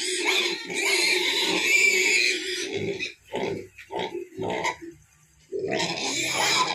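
Several young Duroc and Large White pigs grunting. Dense noisy grunting at first gives way to a string of short separate grunts, with a brief lull about five seconds in before another loud burst.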